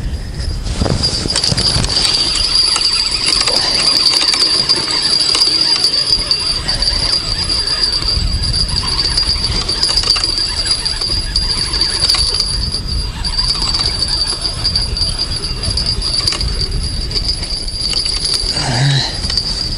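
Fishing reel being cranked to bring in a hooked fish, its gearing giving a continuous high whine that breaks off briefly about two-thirds through, over rumbling handling noise.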